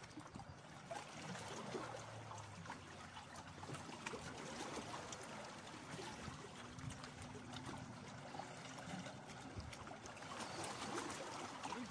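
Small sea waves lapping and trickling against shoreline rocks, a soft steady wash.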